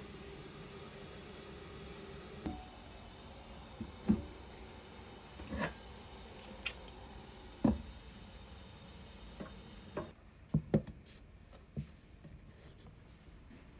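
Bamboo steamer basket and wet butterbur leaves being handled: scattered light knocks and taps, the loudest about four and eight seconds in and a close pair near ten seconds in.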